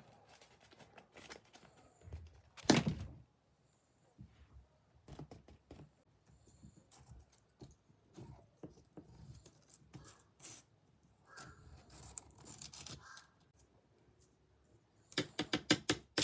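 Packaging being handled and opened: scattered taps, clicks and rustles, with one loud thump about three seconds in and a quick run of clicks near the end.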